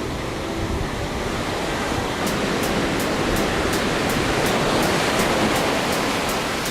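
Rough sea surf breaking on a beach: a steady rush of crashing water that swells slightly toward the middle.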